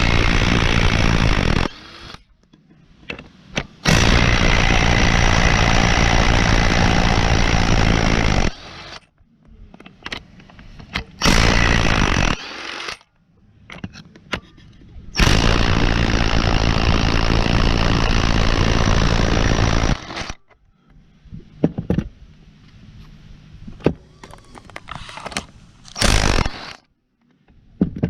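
Impact wrench (rattle gun) undoing the four long 15 mm bolts that hold a rear wheel hub to its knuckle. It runs in several bursts of one to five seconds each, the longest about five seconds, with short clicks between them.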